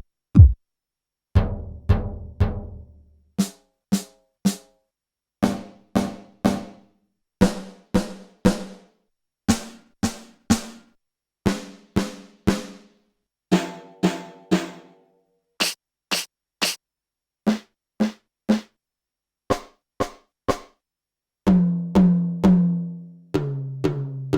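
SoundKing SD20AM electronic drum kit sounds played as separate single hits, often in twos and threes, with a different drum or cymbal voice in each group. Near the end, toms are struck in a row, falling in pitch, and the lowest one rings on.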